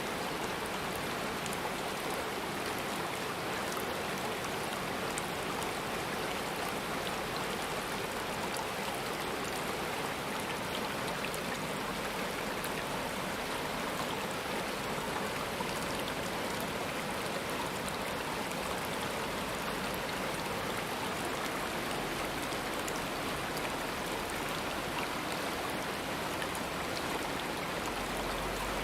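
Flowing stream water rushing steadily, a continuous even splash and hiss of running water.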